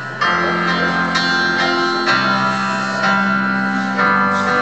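Electronic keyboard playing slow, sustained chords, changing to a new chord about every two seconds.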